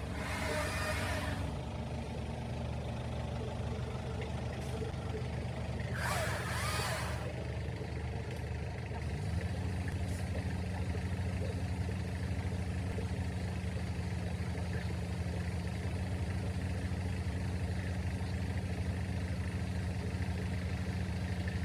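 Heavy diesel engine running steadily, its speed stepping up about nine seconds in and holding there. Two short hisses of released air, one at the start and one about six seconds in.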